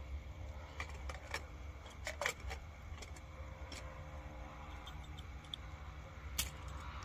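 Metal cooking utensils clinking against a pot: a handful of sharp, separate clicks, the loudest about two seconds in and another near the end, over a faint low steady rumble.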